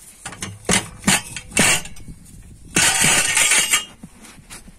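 Steel motorcycle exhaust header pipes knocking and clinking against wooden boards, shaking loose carbon deposits: a few sharp knocks about a second in, then a loud rattling clatter lasting about a second near the three-second mark.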